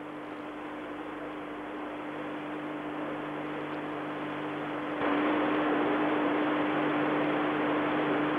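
Steady hiss-like background noise with a constant low hum, growing slowly and then stepping up suddenly about five seconds in. This is the worn soundtrack of an old videotaped TV cricket broadcast, with no commentary.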